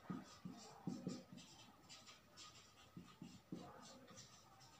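Faint scratching of a marker pen writing on a whiteboard, in quick short strokes one after another.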